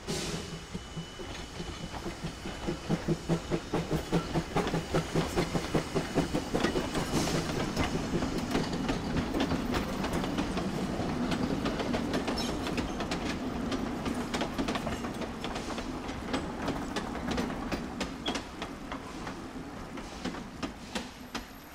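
Two-foot narrow-gauge steam train passing: the locomotive's exhaust chuffs at about four beats a second early on, then the wheels of the freight cars and coach click over the rail joints and rumble across a trestle, fading near the end.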